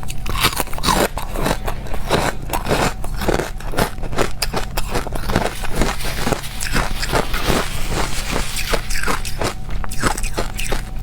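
Crushed ice being bitten and chewed close to the microphone: a rapid run of crisp crunches, several a second.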